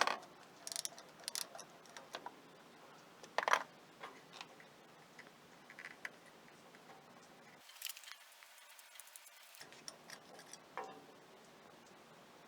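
Irregular clicks and knocks of hand tools on metal while the ignition coil's mounting bolts are being loosened on an opposed-twin Briggs & Stratton engine, the loudest knock about three and a half seconds in.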